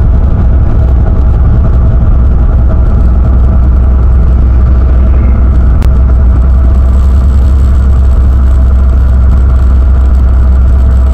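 Semi truck's diesel engine running steadily while driving on a snowy road: a strong, steady low drone heard from inside the cab.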